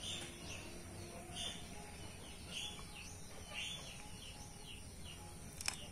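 A small bird chirping repeatedly in short, high calls over a faint steady background, with one sharp click near the end.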